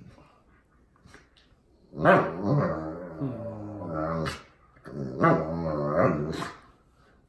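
Old English Sheepdog "talking": two drawn-out, grumbling vocalisations, the first about two seconds long and the second a little shorter, each wavering up and down in pitch.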